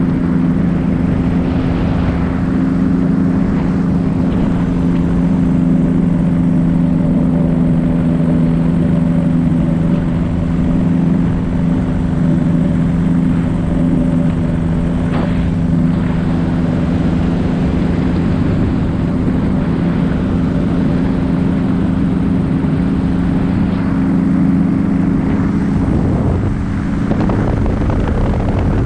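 Paramotor engine and propeller running steadily in flight, a constant loud drone with a few fixed pitches over a rushing noise.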